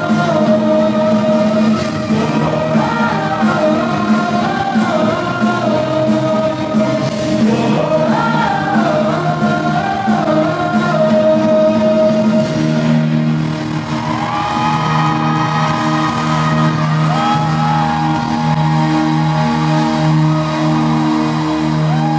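Live pop-rock band playing with drums on a steady beat under a wandering sung melody. A little over halfway through it turns to long held, sliding high notes over sustained low chords.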